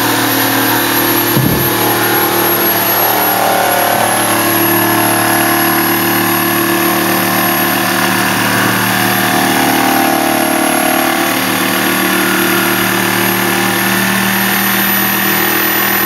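A corded DeWalt jigsaw runs steadily, its blade cutting through a wooden board.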